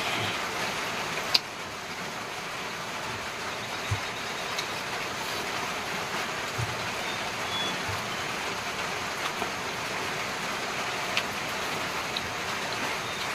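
Steady, even rushing noise with a few short, sharp clicks scattered through it, the clicks fitting the mouth and hand sounds of someone eating by hand.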